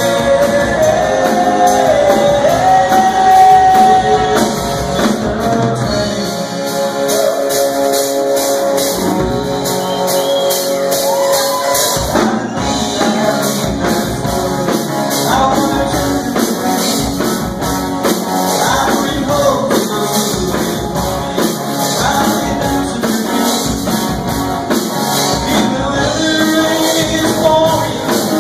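A live rock band playing a song: a male lead vocal singing over electric guitars, keyboard and a drum kit.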